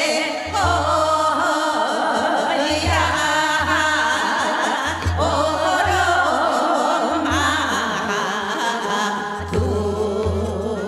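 A woman singing a Seodo sori, a Korean northwestern folk song, in a wavering, ornamented melody. She is accompanied by instruments with a low, regular beat.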